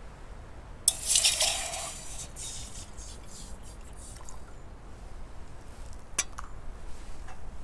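Metal camping cookware clinking and rattling as it is handled: a loud rattle about a second in, then a few light clicks.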